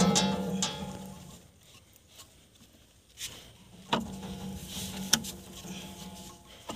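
Background music fading out for a couple of seconds and coming back, with a few sharp clicks about three, four and five seconds in.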